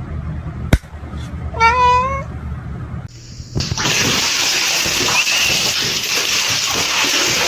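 A cat meows once, a short call about two seconds in, after a single sharp click. Then a steady loud hiss starts and runs on.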